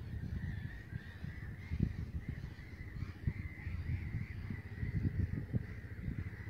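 Outdoor ambience: birds calling steadily in the background over an irregular low rumble on the microphone.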